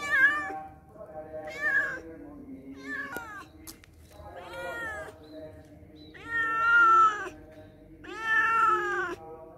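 A domestic cat meowing repeatedly, six separate meows, each rising and falling in pitch. The longest and loudest comes about two-thirds of the way through.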